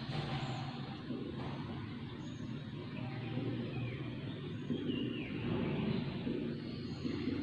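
Steady background noise with a low hum, and a few faint short high squeaks over it.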